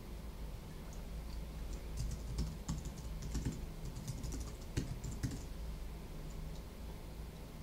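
Typing on a computer keyboard: an irregular flurry of key clicks for a few seconds in the middle, over a steady low hum.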